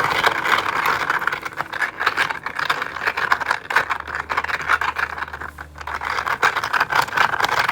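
A silicone ASMR ball filled with 3D-printed plastic beads is being squeezed and worked in the hand: a dense, continuous rattle of many small clicks as the beads knock and rub together.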